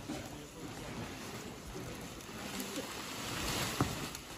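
Rustling of leafy radish greens as bunches of radishes are lifted and handled, growing louder about three and a half seconds in, with a single sharp knock just after.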